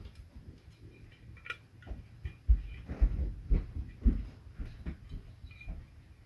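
Soldering-kit tools being handled: irregular soft knocks and thumps with a few light clicks as pliers and parts are picked up and moved about. The knocks come thickest about halfway through.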